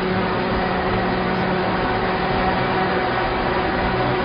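Steady motor hum with a constant rushing hiss underneath, holding level with no breaks.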